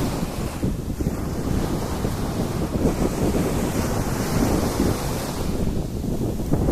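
Sea waves washing onto a beach, with wind buffeting the microphone into a heavy low rumble.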